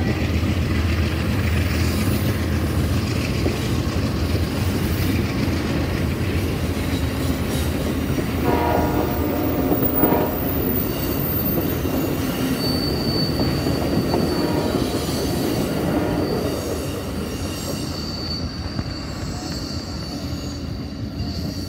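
Amtrak passenger train cars rolling past at a grade crossing with a steady rumble of wheels on rail. A horn sounds briefly about nine seconds in. A high steady wheel squeal runs through the second half, and the rumble fades as the last car passes.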